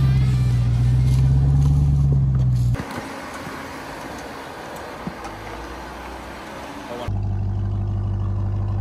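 Music for about the first three seconds, cutting abruptly to a quieter rumble of an off-road truck engine. About seven seconds in there is another sudden cut to a steady engine idle.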